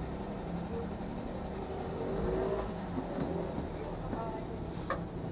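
Steady low mechanical hum with faint voices in the background and a sharp click about five seconds in.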